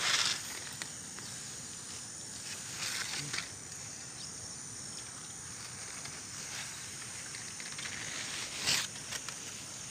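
Corn leaves and stalks rustling, a steady rustle with a few louder brushes, about three seconds in and near the end.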